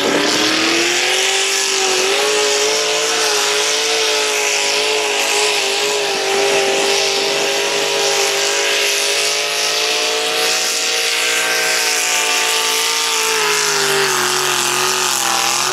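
Modified 1960s Ford pickup's engine at full throttle, pulling a competition sled. It gives a steady high-revving note that climbs slightly in the first couple of seconds, holds, and drops a little in pitch near the end as the truck slows under the load.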